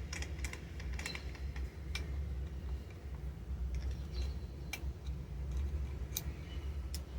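Scattered light clicks and taps of a small screwdriver and the metal and plastic parts of a Tokyo Marui 1911 gas pistol slide as a fine screw is turned out, over a low steady hum.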